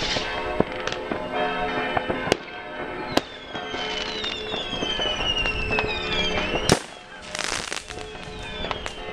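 Fireworks: scattered sharp firecracker bangs, several whistles falling in pitch for about three seconds, then the loudest bang about two-thirds of the way in, followed by a burst of crackling.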